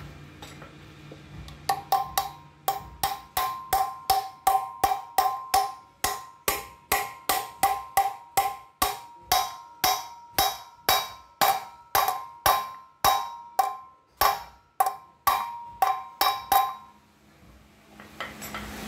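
Hammer striking a metal drift to drive a wheel bearing into a motorcycle wheel hub: a steady run of sharp, ringing metal blows, about two a second, starting about two seconds in and stopping near the end.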